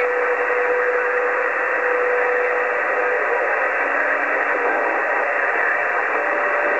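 Static hiss from a Cobra 148GTL CB radio's speaker on an open channel with skip rolling in, no station coming through. Faint steady whistles come and go in the noise: one for the first three seconds, a lower one briefly in the middle, and another near the end.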